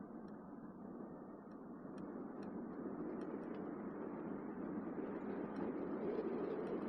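A car driving along a road: steady tyre and road noise that grows gradually louder toward the end, with a few faint, scattered ticks.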